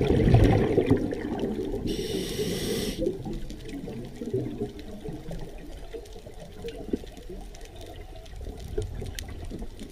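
Scuba diver's exhaled air bubbles rushing and crackling past an underwater camera, loudest in the first second or so and fading by about three seconds in, with a one-second hiss of the regulator's inhale about two seconds in. After that, fainter crackle and scattered clicks in the water.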